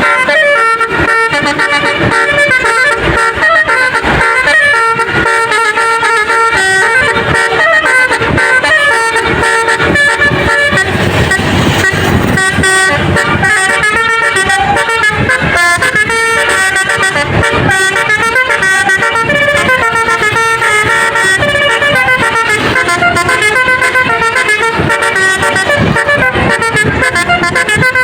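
A bus's basuri (telolet) musical air horn playing a tune of quick, stepping notes. It goes on loudly without a break.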